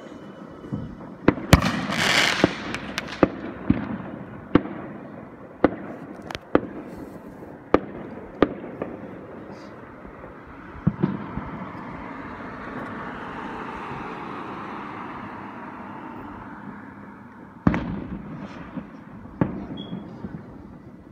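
Fireworks going off: a rapid, irregular series of sharp bangs and cracks, then a steady rushing noise that swells and fades, then another cluster of bangs about three-quarters of the way through.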